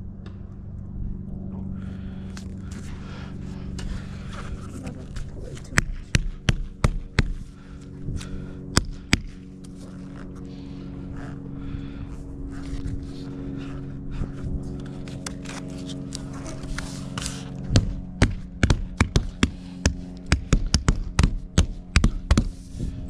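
Background music of held chords that shift a few times, with many sharp taps and knocks over it, coming thicker near the end.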